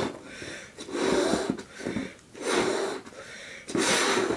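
A person blowing up a rubber balloon by mouth: three strong puffs of breath into it, about one every second and a half, with quieter in-breaths between.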